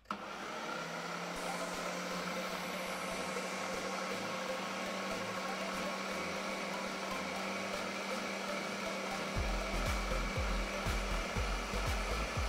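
Ninja countertop blender switched on with a press of its button, starting suddenly and running steadily as it grinds beans, red peppers and onion into a batter. About nine seconds in, a low uneven thudding joins the motor sound.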